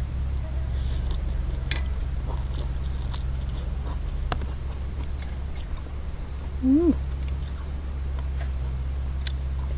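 A person chewing and eating noodle soup, with scattered small mouth clicks over a steady low hum. A brief voiced sound, rising and then falling in pitch, about seven seconds in.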